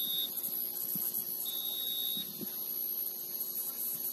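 Referee's whistle: the end of one steady blast right at the start, then a second short, steady blast about a second and a half in, over a constant high hiss.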